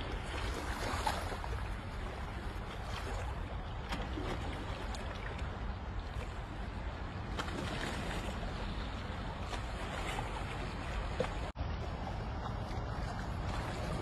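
Sea water lapping and sloshing against shoreline rocks over a steady low rumble of wind. The sound drops out for an instant about two-thirds of the way through.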